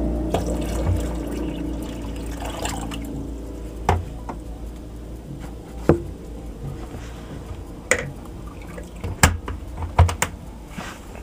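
Zojirushi 2.2 L electric water boiler with the water inside rumbling and bubbling, the rumble dying down over the first few seconds into a quieter steady hiss. Sharp clicks and knocks come every couple of seconds, the loudest in a cluster near the end.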